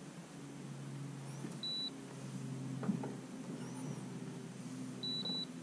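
Electric trolling motor humming steadily, with a short high electronic beep about one and a half seconds in and a quick double beep near the end.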